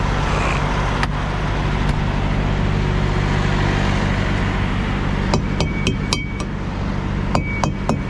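Aluminium tire thumper striking semi-truck tires, a fast run of about five sharp knocks with a short metallic ring, then three more. It is a pre-trip check for flat or low tires. Under it the truck's diesel engine idles with a steady low hum.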